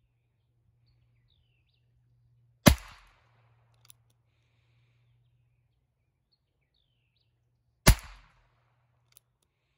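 Two shots from a Heritage Rough Rider .22 single-action revolver firing CCI .22 Short cartridges from its .22 Long Rifle cylinder, about five seconds apart. Each is a sharp crack with a short ringing tail, and each is followed about a second later by a faint click.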